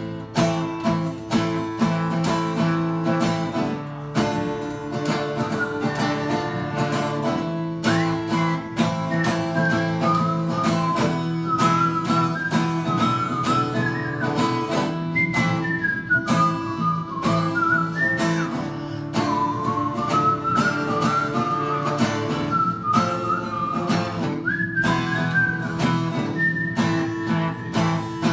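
Acoustic guitar strummed steadily through an instrumental break between verses. From about eight seconds in, a high single-note melody line that slides between notes plays over the chords.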